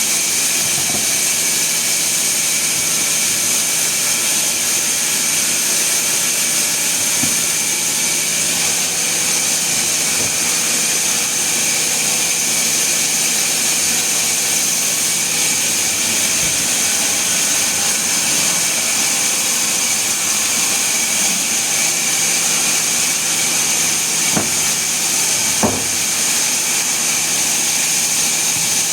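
Sawmill machinery running steadily with a constant high hiss, with two short knocks near the end.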